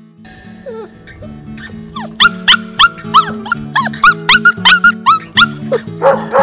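A puppy crying in quick, high-pitched whimpers and yelps, several a second, growing louder about two seconds in, over background music. Near the end deeper barks from an adult dog join in.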